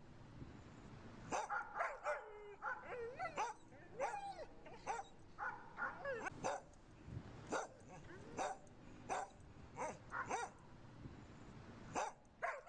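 Several dogs barking in quick, irregular bursts, mixed with high whines and yips.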